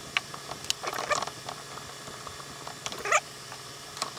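Small metal clicks, knocks and rattles from hands and tools working the slides and tailstock of a Unimat SL1000 miniature lathe, locking the set-up. A short squeak sounds a little after three seconds in.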